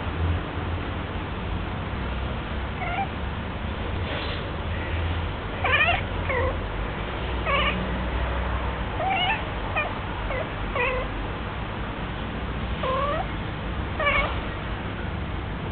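Female cat in her first heat calling: a string of about ten short meows, each bending up and down in pitch.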